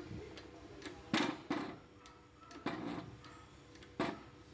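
Press jack working a new bearing into a car air-conditioning compressor pulley: a few sharp metal clicks and clunks, about four, some ringing briefly.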